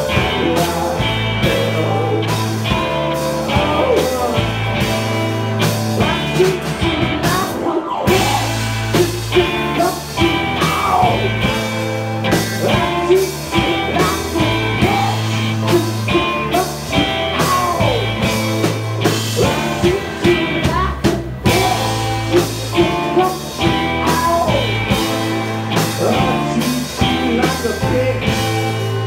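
Live rock band playing: electric guitar, bass and drum kit, with a man singing lead.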